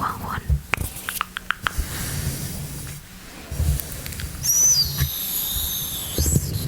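Mouth sounds made close to the microphone: a few sharp wet clicks, then from about four and a half seconds a long, high, wavering squeak.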